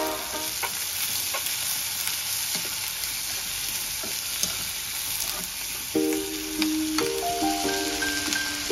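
Sliced onions and green chillies sizzling in hot oil in a kadai, with a steel spoon scraping and tapping the pan as they are stirred. Plucked-string background music comes in about six seconds in.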